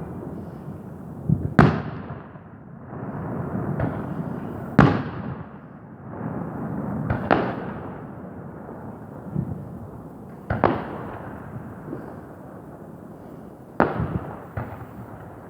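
New Year's fireworks bursting: five loud bangs about three seconds apart, each trailing off in a long echo, over a steady rumble of further bursts.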